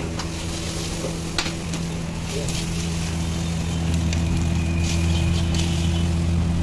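Rice sizzling as it is stir-fried in a hot iron wok over a gas burner, with a long metal ladle scraping and clicking against the pan, over a steady low hum. The frying grows a little louder about four seconds in.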